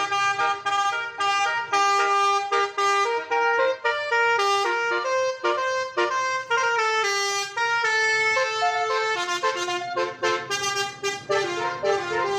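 Indonesian bus 'telolet' musical horn of the basuri type, playing a quick melody of short notes that step up and down in pitch.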